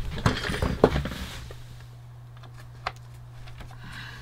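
Handling noise from the opened Sinclair QL's parts: a quick flurry of clicks and rustling in the first second and a half, then a few isolated clicks over a steady low hum.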